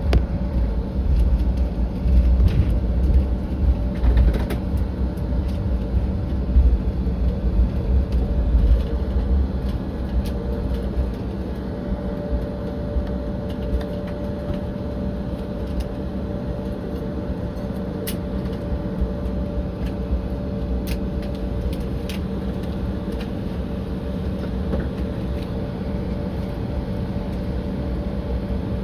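Cabin noise of a Republic Airways Embraer regional jet: the turbofan engines hum steadily with a pair of steady whining tones, over a heavy, bumpy rumble from the wheels on the pavement that eases off about ten seconds in.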